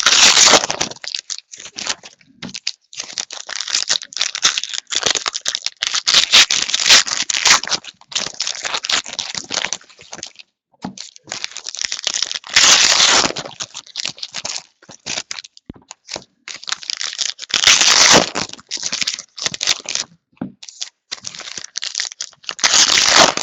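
Trading card pack wrappers being torn open and crinkled by hand, in irregular bursts of rustling with short pauses between.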